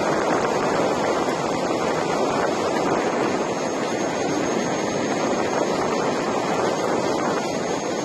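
Steady rushing noise of a Gotway Tesla electric unicycle rolling along pavement at speed, tyre roar mixed with wind on the microphone, with a faint steady high whine above it.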